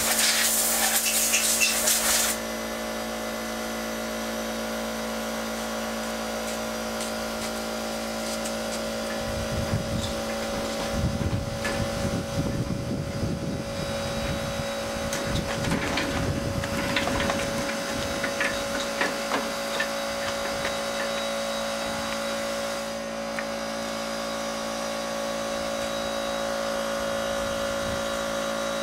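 Compressed air blasting from a shop air hose for about two seconds, then cutting off sharply. A steady machine hum with two pitches carries on throughout, and from about nine to twenty seconds in come knocks and clatter of tools and parts being handled.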